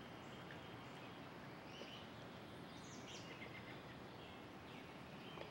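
Quiet outdoor ambience: a steady faint hiss with a few faint, short, high chirps scattered through it.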